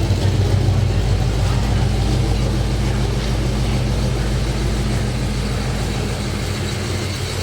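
Holden VK Commodore SS Group A's 5.0-litre V8 idling steadily, with a deep, even low-pitched hum.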